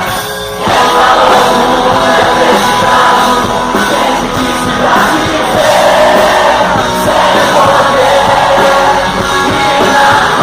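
Live rock band playing loudly, the full band kicking in harder less than a second in, with voices singing and shouting over it.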